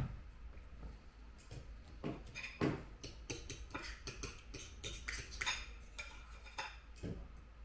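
A glass set down on the table with a thud right at the start, then a knife and fork clicking and scraping on a dinner plate as food is cut, a run of light irregular clinks.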